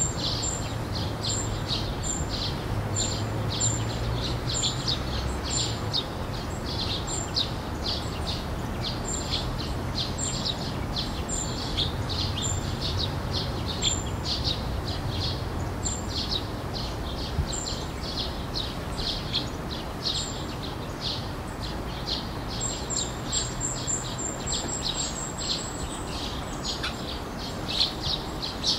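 Tufted duck ducklings peeping: short, high-pitched calls repeated about twice a second, coming a little faster near the end, over a low steady rumble.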